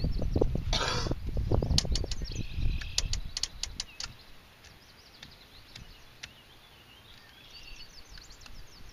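Small birds chirping over and over, over low rumbling noise and a quick run of sharp clicks in the first four seconds, after which only the chirping remains.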